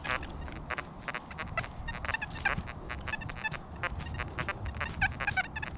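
XP Deus 1 metal detector in full-tones mode giving a quick, irregular string of short pitched beeps as the coil sweeps trashy ground. The jumbled tones mark junk targets such as foil and pull tabs.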